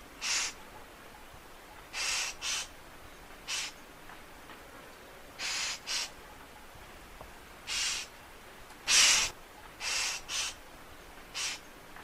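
Hooded treepie (Crypsirina cucullata) giving short, harsh, rasping calls, about eleven in all, some in quick pairs, the loudest about nine seconds in.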